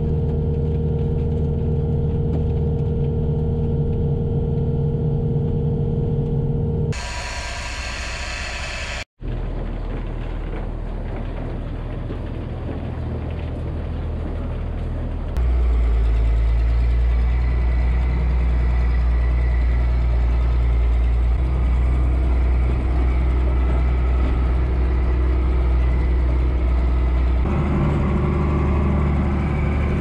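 Engines heard from inside the cabs of farm machines. A skid loader idles steadily for the first seven seconds. After a couple of abrupt cuts, a tractor engine runs under way, louder and deeper from about fifteen seconds in.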